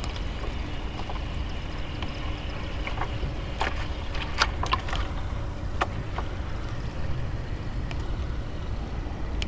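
Steady low wind and water rumble around a small fishing boat on open water. A few sharp clicks and taps come between about three and a half and six seconds in.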